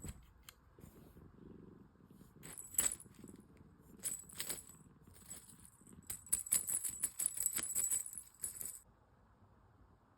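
Ragdoll kitten purring, with a run of rapid, bright clicks and rattling from about two and a half seconds in that stops suddenly near the end.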